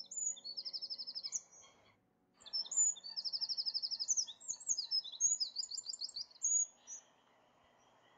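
Small birds chirping, with fast trills of repeated high notes. The song breaks off briefly about two seconds in, resumes, and stops about seven seconds in.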